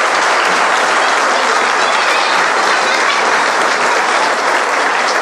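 Audience applauding steadily: a dense, even clapping from a crowd of spectators.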